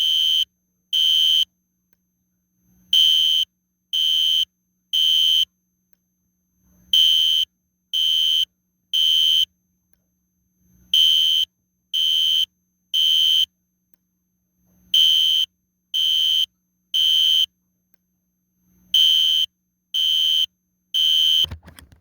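System Sensor SpectrAlert Classic fire alarm horn strobe sounding Temporal Code 3: three half-second horn blasts about a second apart, then a pause, with the group repeating every four seconds. A soft knock follows the last blast near the end.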